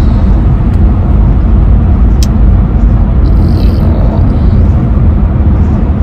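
Steady low rumble of road and engine noise inside a moving car's cabin, with one short click about two seconds in.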